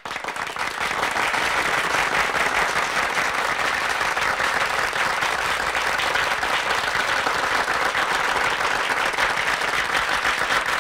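Audience applause: dense, steady clapping that swells up over the first second and holds at an even level.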